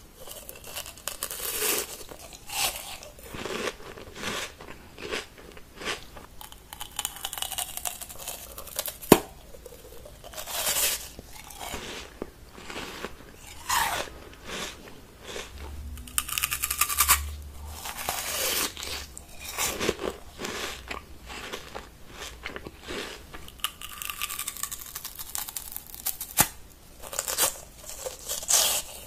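Repeated crunching bites and chewing of brittle food, a short crunch every second or two between stretches of chewing, with one sharp crack about nine seconds in.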